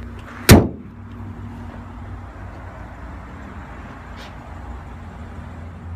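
The hood of a BMW M235i is slammed shut with one loud thud about half a second in. Under it a steady low rumble goes on.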